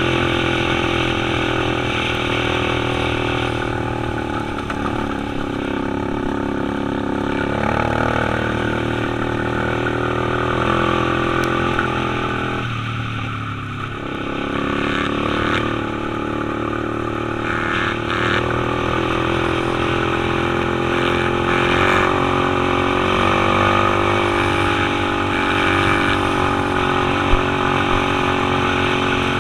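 Dirt bike engine heard from the rider's seat, running under varying throttle with its pitch rising and falling. It eases off briefly about twelve seconds in, then pulls again.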